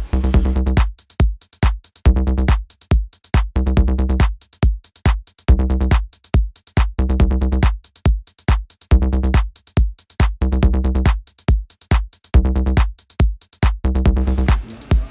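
Electronic dance music: heavy bass chords chopped into a fast, stuttering pulse over a drum-machine beat.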